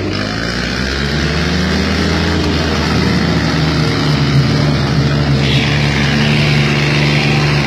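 Tractor diesel engine revving up during the first second, then held at high revs.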